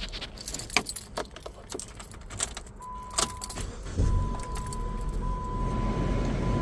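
Keys jangling and clicking, then about four seconds in the 2014 Jeep Patriot's four-cylinder engine cranks, starts right up and runs, while a steady electronic chime tone sounds. The start shows that the dead key-fob battery was behind the no-crank, no-start; a new fob battery cured it.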